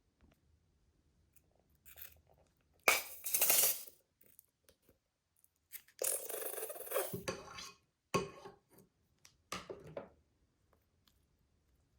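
Slime being squished and pressed by hand, in four crackly bursts; the longest, a little after the middle, runs nearly two seconds.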